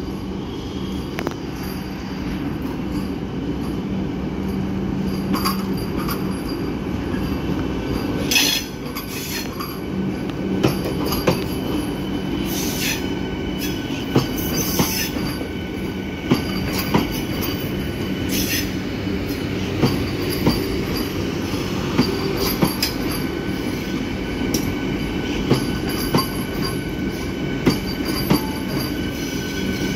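Vande Bharat Express electric multiple unit rolling slowly past at departure: a steady rumble with a hum through the first third, brief high wheel squeals a few times, and then sharp clicks, often in pairs, every second or two as the wheels cross rail joints.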